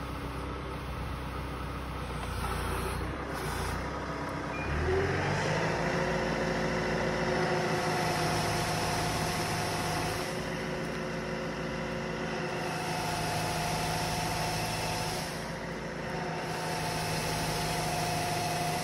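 Spedo Fruipick walnut tree shaker at work: its engine runs low, then revs up about five seconds in and holds a steady, higher pitch while the clamped trunk is shaken. A hiss of shaking foliage runs over it.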